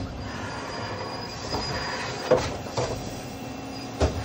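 Lockheed F-104S main landing gear extending under hydraulic power: a steady hiss with a faint high whine, and short knocks of the gear mechanism about two, three and four seconds in. The gear moves in jerks because the ground hydraulic mule supplies less flow at 3000 PSI than the aircraft's own system.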